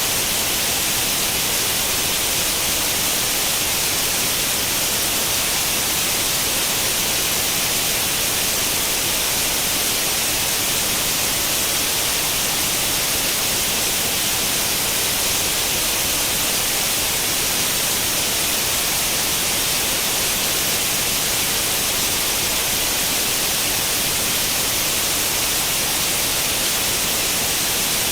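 Steady hissing static of an old tube television tuned to no channel: even white noise, brightest in the high frequencies, unchanging throughout.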